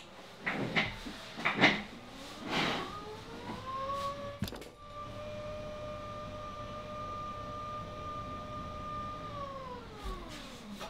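Electric sit/stand desk's lift motor whining: its pitch rises as it starts, holds steady for about five seconds, then falls away as it stops near the end. A few knocks and rustles come first.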